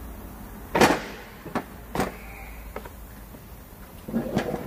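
Honda GX35 four-stroke brush cutter engine being pull-started after a timing belt and cam gear replacement: several short, sharp pulls of the recoil starter, the loudest about a second in and a cluster near the end, without the engine catching.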